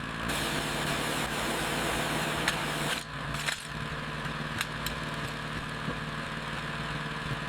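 A motor running steadily at an even pitch, with a few sharp clicks. Its sound drops and changes about three seconds in.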